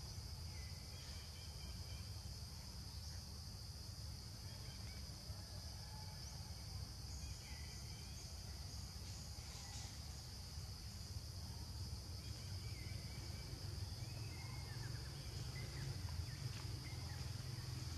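Steady high drone of insects in the forest, with occasional short bird chirps over a low rumble.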